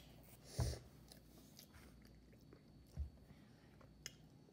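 A child chewing a mouthful of spicy fries, faint, with a soft thump about half a second in and another about three seconds in.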